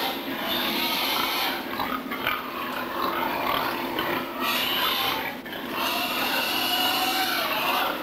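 Many sows in gestation crates in a hog confinement barn vocalizing together, a busy mix of grunts and short higher cries, over a steady low hum.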